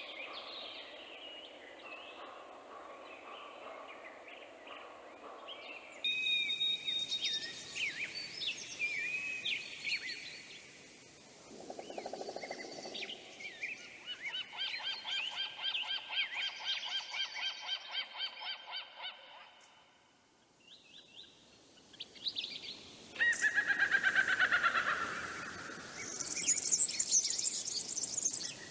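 Bird calls from several different birds in turn, some whistled and some honking or fast repeated calls. The sound changes abruptly several times.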